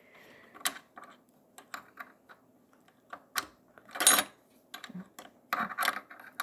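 Small metal parts of a Kenmore sewing machine's bobbin hook assembly clicking and scraping as fingers try to seat them. The taps are irregular, with a louder clatter about four seconds in and another near the end.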